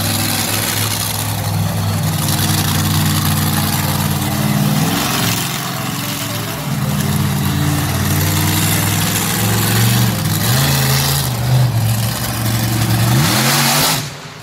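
Bigfoot monster truck's engine running and revving, climbing in pitch about four seconds in and again near the end as the truck accelerates to crush a row of cars.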